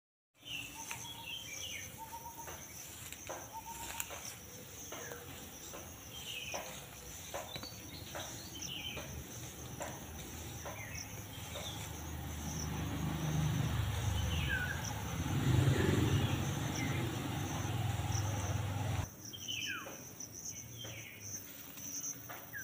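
Garden ambience: a steady high insect trill, like crickets, with scattered short bird chirps. About halfway through a low rumble swells in for several seconds and cuts off abruptly.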